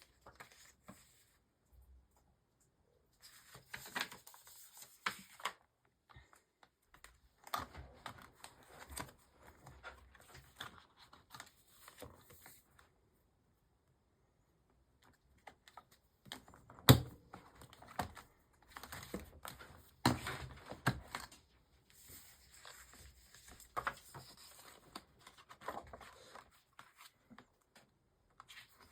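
Paper planner inserts being handled: pages rustling and sliding, with scattered sharp clicks, the loudest a little past halfway.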